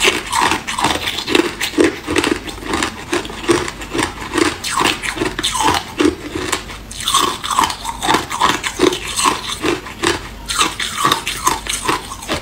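A person chewing hard clear ice with the mouth closed: a steady run of close, crisp crunches, about two or three a second.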